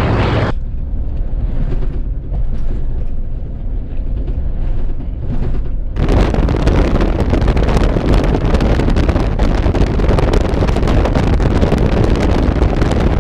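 Jeep Wrangler Rubicon driving off-road: a loud, steady low rumble of drivetrain and tyres with wind buffeting the microphone. About six seconds in it turns abruptly harsher and hissier.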